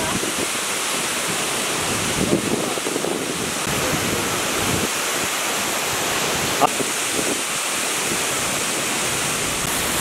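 A waterfall dropping about 15 metres into its pool: a steady, even rush of falling water. A single brief click about two-thirds of the way through.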